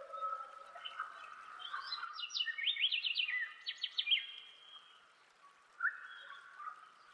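Birds chirping: a quick run of short, high chirps about two to four seconds in, then a lull and one more chirp near six seconds.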